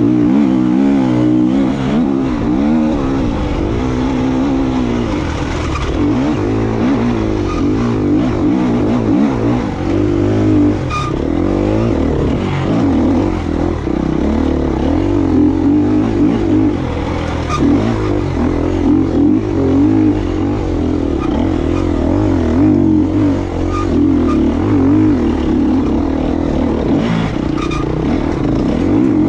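KTM EXC 250F dirt bike's four-stroke single-cylinder engine under way, its revs rising and falling continuously as the throttle is worked on and off.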